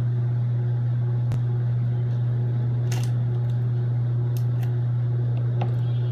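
A handful of short, sharp snips of scissors cutting into a booster-pack wrapper, over a steady low hum that is the loudest sound throughout.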